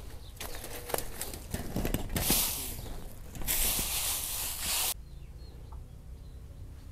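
Dry bamboo leaves and straw crunching and rustling under footsteps, with two longer, louder rustles about two and three and a half seconds in, then quieter, sparser crackling from about five seconds.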